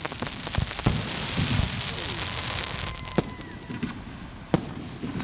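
Fireworks crackling densely like rain, with low booms underneath, thinning in the second half to a few separate sharp bangs. A faint whistle runs through the middle.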